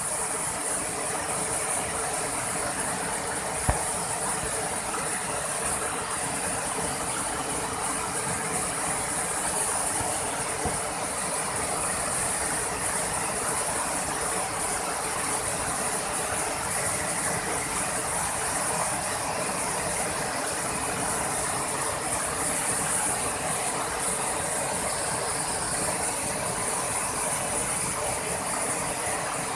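Wide waterfall cascading over rock ledges into a pool: a steady rush of falling water, with a single click about four seconds in.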